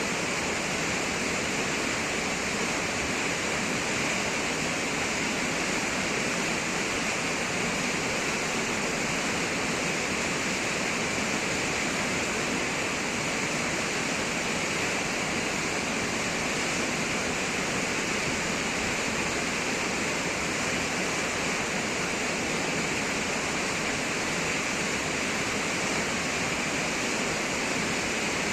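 Düden waterfall: falling water making a steady, unbroken rush.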